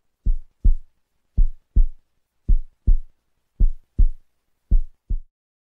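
Heartbeat sound effect: five deep double thumps, lub-dub, about one a second.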